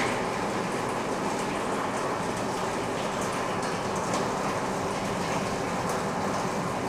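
Pumped water running steadily through an artificial-rain installation, where electric pumps in a bin drive water through pipes onto a roof of wood and metal sheets. It is an even rush with scattered faint ticks.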